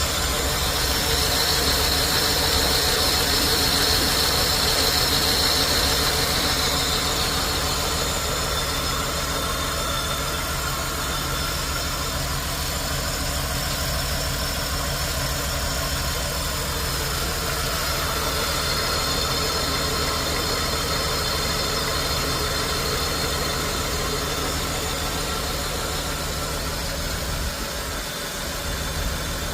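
2002 Ford Falcon AU engine idling roughly and unevenly, with a high whine that rises and fades twice. The owner suspects a sticky auto choke or a failing coil pack.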